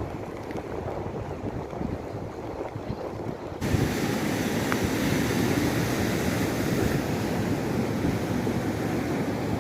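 Wind blowing on the microphone over rough sea, with the wash of waves. About three and a half seconds in the noise jumps suddenly louder and hissier.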